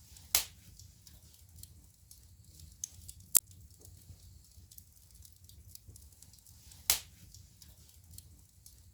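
Wood fire crackling in a fireplace: faint continuous ticking over a low steady rumble, with three loud sharp pops about three seconds apart.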